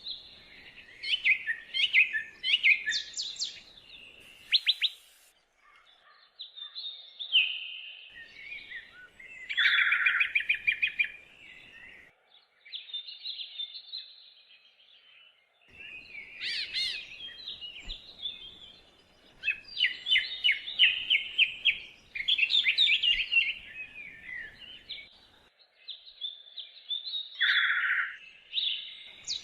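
Songbirds singing: phrases of quick chirps and rapid trills, coming in bursts of a few seconds with short pauses between.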